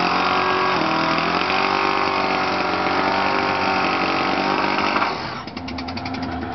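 Engine with a minor exhaust leak held at high revs for about five seconds, then dropping suddenly back toward idle. The owner expects the leak to grow with this run.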